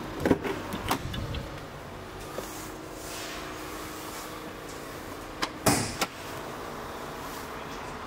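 Land Rover Discovery door being handled: a cluster of sharp clicks and knocks in the first second or so, and another three about five and a half to six seconds in, over a steady low room hum.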